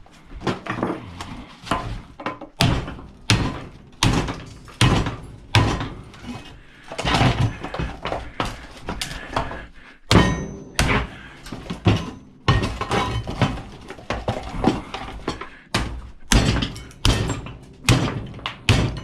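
Repeated irregular knocks and bangs, with some scraping between them, as a plastic part is forced and broken off an old 12 V battery charger.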